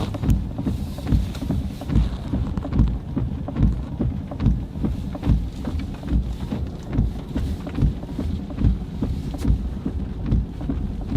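Wind buffeting the microphone while walking uphill, with steady low footstep thuds a little under one a second.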